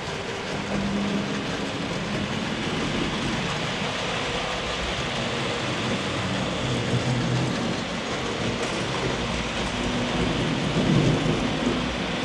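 HO-scale model trains running on the layout's track: a steady rushing noise of metal wheels rolling on rails, swelling slightly near the end.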